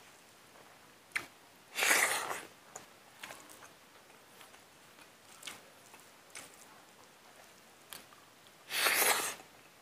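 Mouth and breath sounds of a man eating rice and meat by hand: faint chewing and small clicks, broken twice by a loud, sharp sniff, about two seconds in and again near the end.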